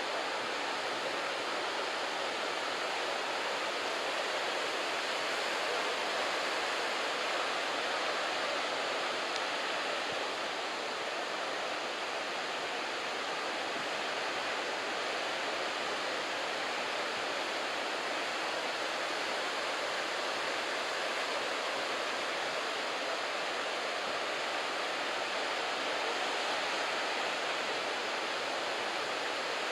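Head-high typhoon-swell surf breaking continuously, a steady even hiss with no single wave standing out.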